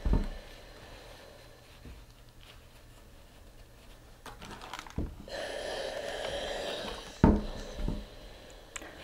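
A steam iron hisses for about two seconds a little past halfway while pressing a shirt collar on a wooden point press. Before and after it come a few sharp knocks of the iron and the wooden press against the board, with the soft rustle of the cotton collar being shifted and lifted.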